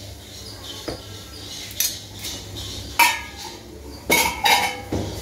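A metal spoon clinking and tapping against a bowl as an ingredient is spooned in: about six sharp clinks, each with a short ring, the loudest about three and four seconds in.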